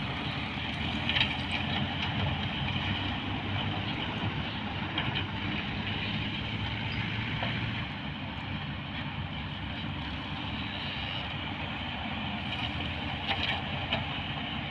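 Diesel engine of heavy earth-moving machinery running steadily, with a slight drop in level about halfway through.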